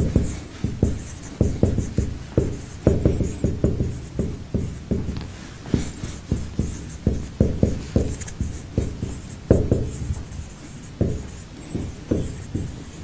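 Marker pen writing on a whiteboard: quick, irregular knocks and short scratchy strokes, several a second, as letters are written line by line.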